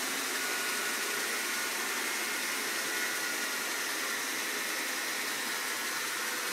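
1941 Monarch 10EE lathe running on its variable-frequency-drive AC motor: a steady machine hum and hiss with a faint high whine.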